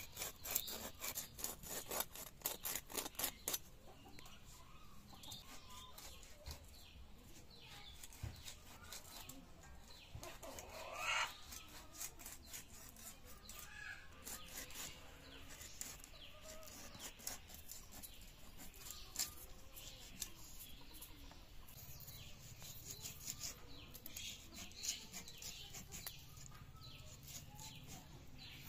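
Rapid scraping strokes, about four to five a second for the first few seconds, as a large boal catfish is drawn against a boti blade. Scattered light cuts and scrapes follow, with a rooster crowing once about eleven seconds in.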